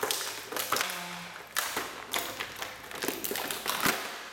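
Plastic and cardboard action-figure packaging being handled and opened: irregular crinkling, crackles and sharp taps.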